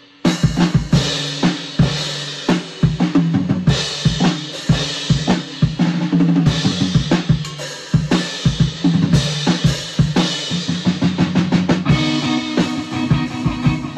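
Drum kit played in a busy improvised groove, with kick, snare and cymbal strikes coming in suddenly at the very start. An electric guitar holds low notes underneath.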